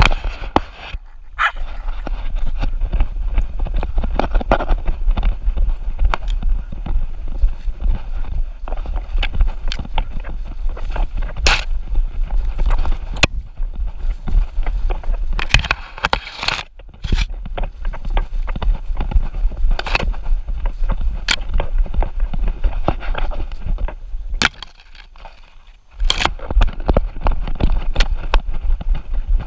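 Handling noise from a camera strapped to a dog on the move: a steady low rumble with frequent clicks and knocks as the dog goes along the trail. It drops to a quieter stretch for about a second and a half near the end.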